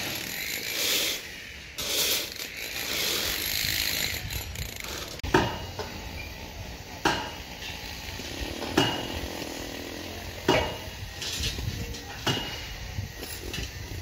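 Sharp metallic clicks repeating about every two seconds, some with a brief high ring, from steel reinforcing bars being worked and tied with wire, over steady noise.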